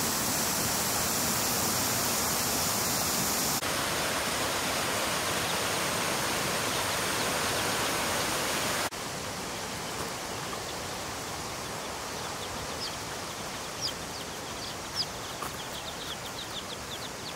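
Steady outdoor rushing noise, which drops abruptly in level about three and a half and nine seconds in. From about ten seconds in, small birds chirp in short high calls over it.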